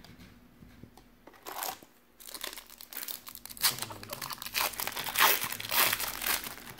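Foil wrapper of a basketball trading-card pack being torn open and crinkled. A brief crinkle comes about a second and a half in, then steady tearing and crackling from about two seconds in.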